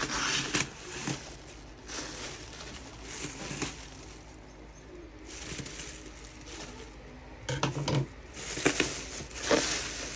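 Scissors snipping into a plastic bubble-wrap shipping pouch, then the plastic crinkling and rustling in short bursts as the parcel is handled and pulled open, loudest near the end.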